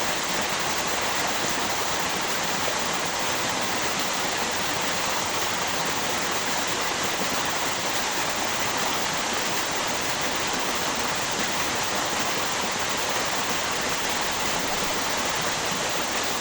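Flowing river water with a small waterfall: a steady, even rush of water with no breaks.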